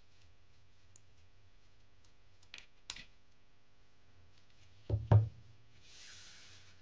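Scissors snipping through folded patterned paper, two sharp snips about two and a half seconds in. About five seconds in come two loud knocks on the tabletop, followed by a brief soft rustle of paper or a hand brushing the table.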